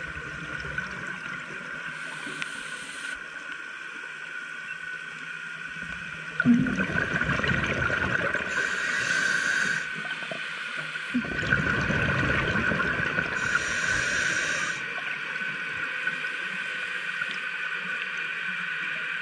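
Underwater ambience with a steady hum, broken twice by a rush of gurgling bubbles lasting three to four seconds each, about six and eleven seconds in: a scuba diver exhaling through a regulator.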